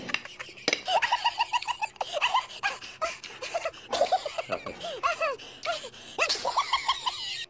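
Metal spoon and fork clicking and scraping against a plate while rice is eaten. Over them, a voice makes runs of quick, short, rising-and-falling notes. Both stop abruptly near the end.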